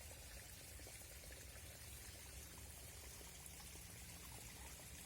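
A stream flowing, its water running faint and steady.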